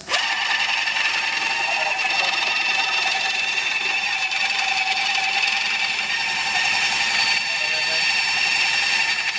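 Hydraulic earth auger switched on suddenly and running steadily, a high whine that holds one pitch as the bit turns in the soil.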